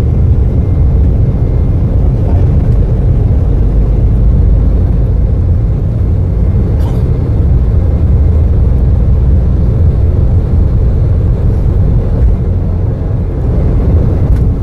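Steady low rumble of an Embraer regional jet's engines and wheels, heard inside the cabin as the airliner rolls along the ground.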